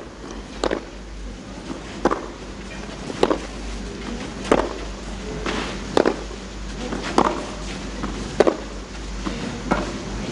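Tennis ball struck back and forth by rackets in a baseline rally on clay: about nine crisp hits, evenly spaced about a second and a quarter apart.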